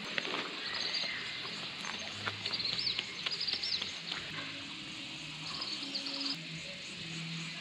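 Small birds chirping in short clusters of quick, high notes, several times over, above a steady outdoor hiss.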